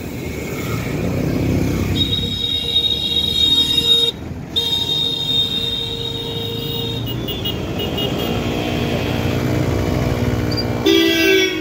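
Busy street traffic with a steady low rumble. About two seconds in, a vehicle horn sounds a long held blast, broken once by a short gap, lasting about five seconds in all. Another horn gives a short loud honk near the end.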